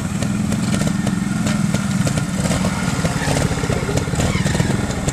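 Trials motorcycle engine running at low revs under light throttle as the bike is ridden slowly over the ground.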